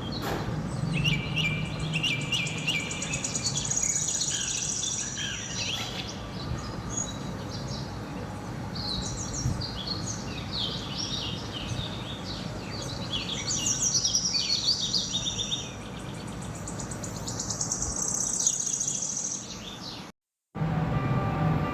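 Several wild birds chirping and singing, with short calls and quick trills, over a steady low background hum. The sound cuts out briefly near the end.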